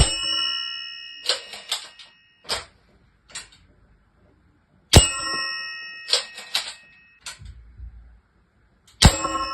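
Air-rifle pellets striking a 3 mm steel self-resetting tumbler target three times, about four to five seconds apart. Each hit gives a clear metallic ring that fades over about a second, followed by a few lighter clanks as the target tips over and rolls back upright.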